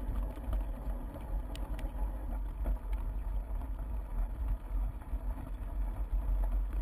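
Low, gusting wind rumble on a bike-mounted action camera's microphone as the bike rolls over a grassy trail, with a few faint clicks and rattles from the bike about two to three seconds in.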